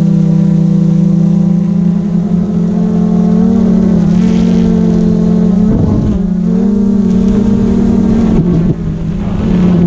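Quadcopter drone's propellers whirring in a loud, steady hum, the pitch stepping up a little about three and a half seconds in and wavering near six seconds as the drone changes its flight.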